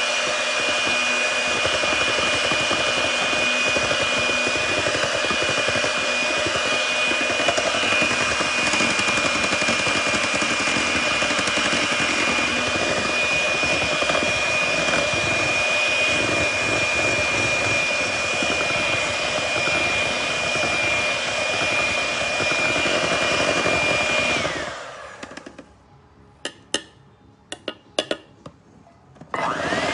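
Electric hand mixer running steadily with a constant high whine as its beaters churn chocolate cake batter in a stainless steel bowl. About 25 s in the motor is switched off and winds down. A few short knocks follow, and near the end the mixer is switched back on, its whine rising as it speeds up.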